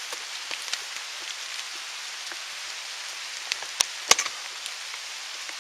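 Steady rain hiss falling on the woods, with scattered small drop ticks and two sharp clicks close to the microphone near the end.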